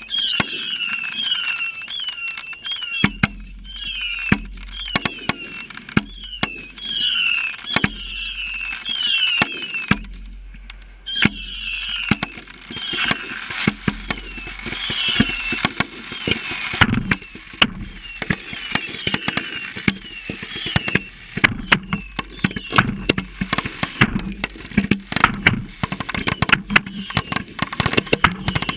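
Fireworks finale going off at close range: a rapid run of bangs and cracks, mixed in the first half with many short whistles that glide down in pitch, then a denser barrage of bangs and crackles in the second half.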